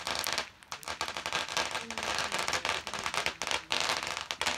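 Fireworks crackling: a ground fountain firework giving off rapid, dense pops over a steady hiss, with a short lull about half a second in.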